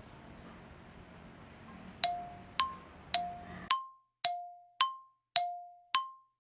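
Countdown timer sound effect: a chime-like ding strikes about twice a second, alternating between a lower and a higher pitch. It starts about two seconds in, after a faint quiet stretch.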